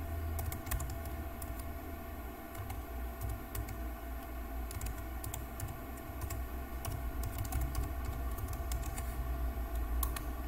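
Typing on a computer keyboard: a run of irregular key clicks as an email address is entered, with one sharper click near the end, over a steady low hum.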